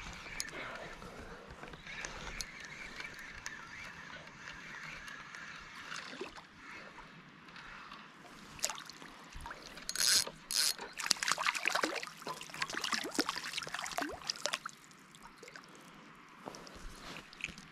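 Small fixed-spool spinning reel being wound in as a hooked brown trout is played to the bank, its handle and rotor turning with a light clicking whirr. From about ten seconds in, a louder run of splashes and clicks lasts about four seconds as the fish is drawn in close.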